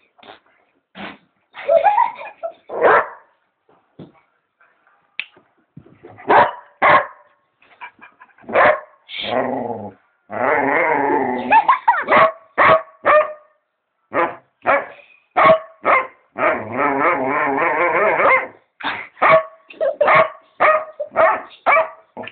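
A dog barking in short single barks with irregular gaps. Twice, about ten seconds in and again around sixteen seconds in, it gives a drawn-out, wavering vocalisation of about two seconds, a talking-like whine.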